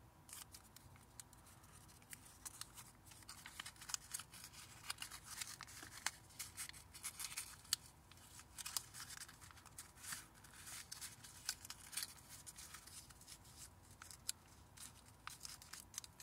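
Paper crinkling and rustling as a small sheet is folded and creased by hand into an origami crane: a quiet run of irregular sharp crackles.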